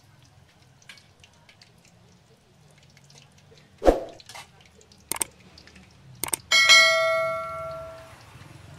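Metal tongs and spoon knocking against a stainless steel bowl, ending in one sharp clang about six and a half seconds in that rings on for about a second and a half. Under it, faint crackling of eggs frying in a wok of oil.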